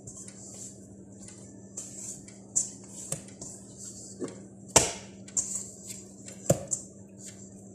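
Hands kneading soft bread dough in a stainless steel mixing bowl: irregular squishing and soft knocks of the dough against the bowl, with two louder thumps a little past the middle.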